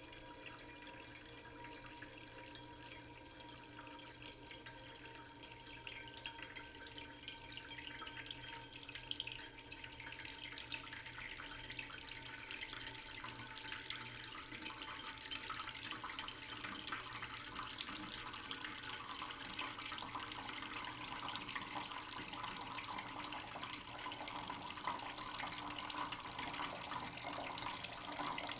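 Water running steadily from a tap into a sink, a splashing hiss that thickens about ten seconds in, with an occasional sharp knock of a knife on a plastic cutting board.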